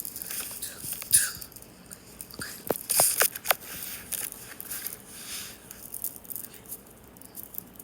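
Small plastic toy figures being handled and moved about: rustling, with a few sharp clicks and taps around the middle.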